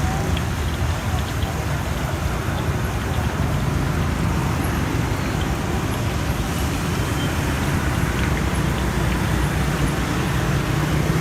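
Steady road traffic noise, an even rumbling din with a few faint ticks.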